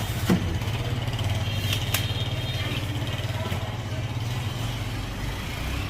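Engine running steadily with a low, even rumble, joined by a couple of sharp clicks near the start and about two seconds in.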